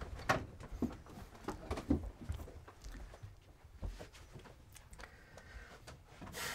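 Footsteps and scattered light knocks at irregular intervals in a small wooden room, with a faint low rumble underneath.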